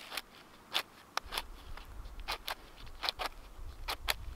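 Knife spine scraping along a ferro rod in a series of short, sharp strokes, about two a second, over a low rumble that starts about a second in.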